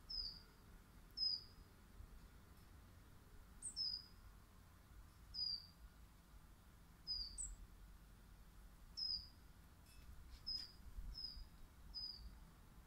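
A small songbird giving short, high, slightly falling call notes, about nine in all, spaced a second or so apart, a few with a brief higher note just before.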